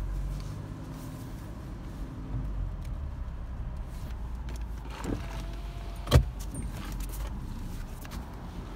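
Low, steady rumble of a car driving slowly, heard from inside the cabin, with a few sharp clicks or knocks, the loudest about six seconds in.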